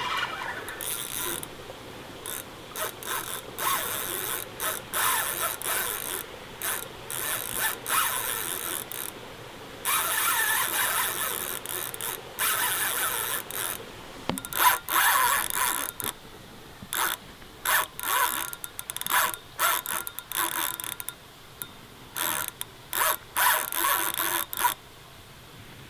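Spinning reel's drag ratcheting in repeated bursts of a second or two, with a longer run about ten seconds in, as a hooked wels catfish pulls line from the spool.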